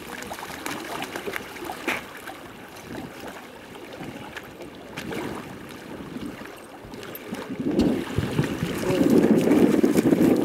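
Pond water sloshing and lapping in the shallows where a dog is wading, with wind on the microphone. A louder rough rush of wind and water comes in about eight seconds in and lasts to the end.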